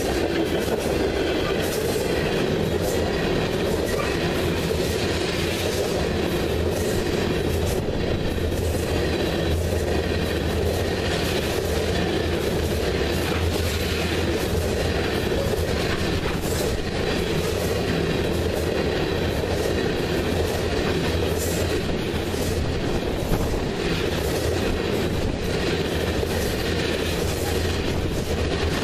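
Crude oil tank cars of a freight train rolling past close by: a steady rumble of steel wheels on rail, with irregular clicks and clacks over it.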